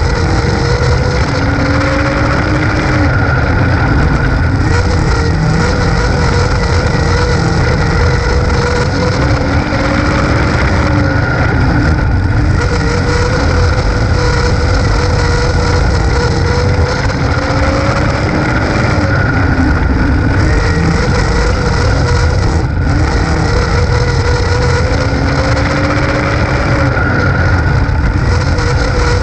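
Dirt late model race car's V8 engine running hard, heard from the cockpit, its pitch climbing and dropping every seven or eight seconds as the car laps the oval. Heavy wind and chassis rumble run under it.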